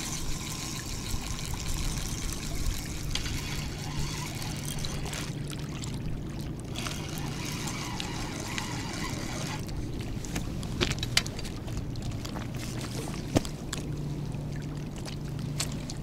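Spinning reel being cranked to bring a hooked fish in to a rocky shore, with its winding running in stretches through the first half, then a few sharp clicks or knocks.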